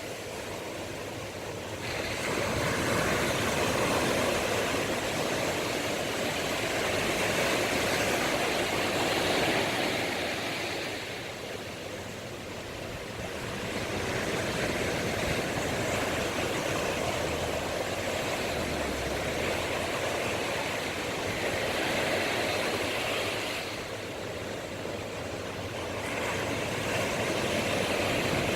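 Sea surf breaking on the shore, a continuous rush that swells and eases about every six to eight seconds as the waves come in.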